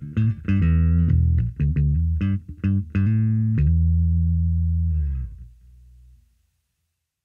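Orange O Bass electric bass played through a direct signal, plucked with the fingers: a run of short notes, then a long held low note that rings out and fades away about six seconds in.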